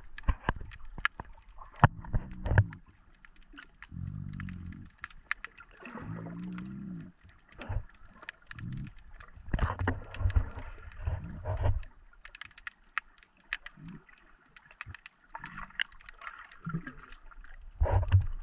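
Sea water heard through an underwater camera: scattered sharp clicks and crackles, with muffled low whooshes every second or two.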